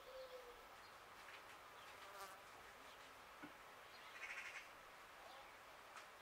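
Near-silent outdoor quiet with a flying insect buzzing briefly past about four seconds in, a fast, pulsing buzz lasting about half a second.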